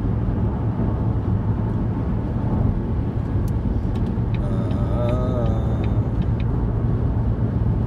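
Steady low rumble of road and engine noise inside a moving SUV's cabin.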